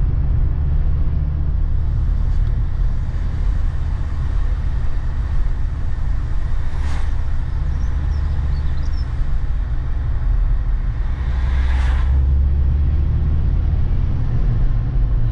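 Volvo S60 D5 five-cylinder turbodiesel car on the move, heard from inside the cabin: a steady low rumble of engine and road noise, with two brief rushing swells about seven and twelve seconds in.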